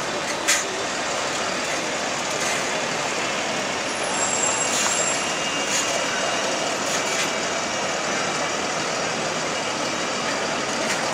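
Solaris Urbino city bus driving slowly past, its engine running over steady street-traffic noise, with one sharp click about half a second in.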